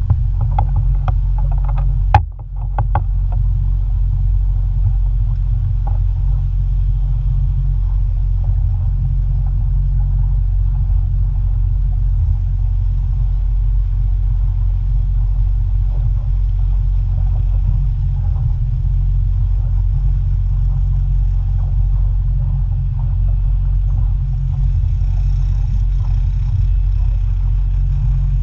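Motorboat under way: a steady low rumble of the engine and hull running across calm water, with one sharp knock about two seconds in.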